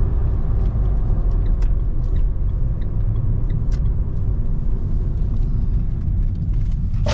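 Car driving along a country road, heard from inside the cabin: a steady low rumble of engine and road noise.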